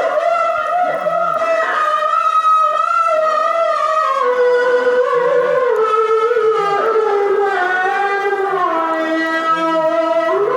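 A Qur'an reciter's voice holding one long, ornamented melismatic phrase on a single breath, its pitch wavering and stepping gradually down, dropping to a lower note about eight and a half seconds in.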